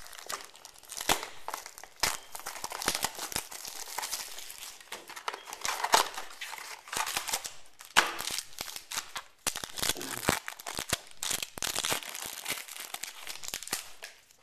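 Cardboard mini box being torn open and foil trading-card packs being ripped and crinkled, with irregular crackling and a few sharp snaps of tearing wrapper.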